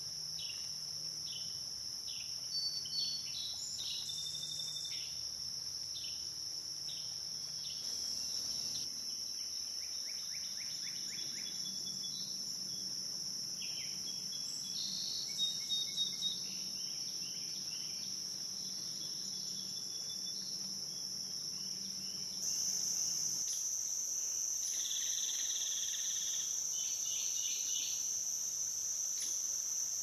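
Steady high-pitched drone of insects, growing louder about two-thirds of the way through. Birds sing over it, and an oriole calls about halfway, a few quick loud notes.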